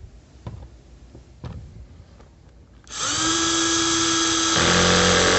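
Cordless screwdriver driving a door-trim-panel screw home, its motor whining for about three seconds from about three seconds in. The pitch drops partway through. A few light clicks come before it.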